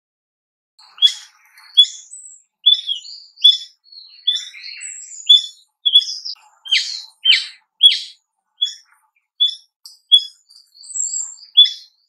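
Brown-eared bulbul calling: a long run of short, sharp, strident calls, about one and a half a second.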